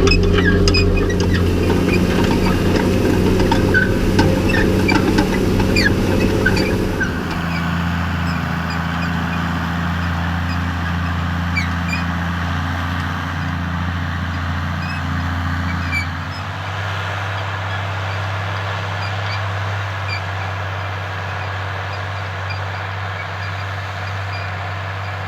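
New Holland M115 Turbo tractor's six-cylinder turbo-diesel engine running steadily under load while it pulls a mounted cultivator through the soil. The hum drops in level about a third of the way in and again a little past halfway.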